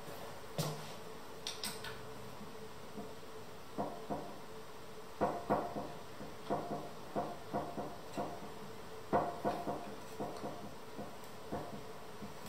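A hex key working a bolt in a bentwood chair frame joint: a run of small metallic clicks and knocks, about two or three a second, starting about four seconds in.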